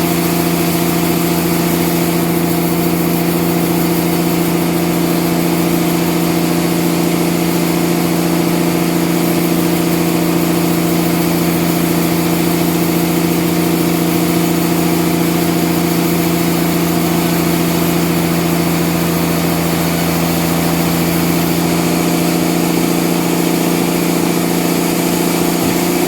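Sawmill machinery running steadily: a loud, unchanging engine drone with no change in pitch or load.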